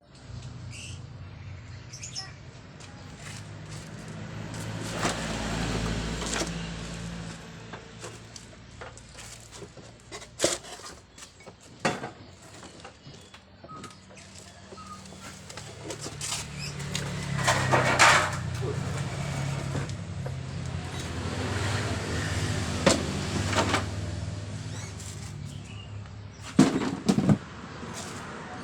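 Honda Scoopy FI scooter's single-cylinder engine running, its pitch rising and falling as it is revved up twice, with a few sharp knocks in between.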